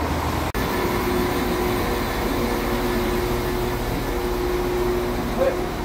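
Northern Ireland Railways diesel multiple unit standing at the platform, its engine and on-board equipment giving a steady hum, with a brief dropout in the sound about half a second in.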